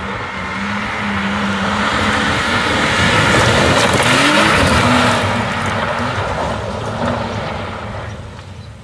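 BMW 3 Series (E46) saloon driven hard past on loose gravel: the engine is held high with a short rev rise midway, and the tyres spray gravel. It is loudest as the car goes by in the middle and fades away toward the end.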